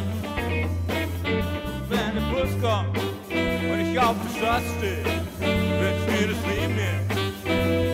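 Background music: an upbeat swing-style tune with a steady bass line and guitar.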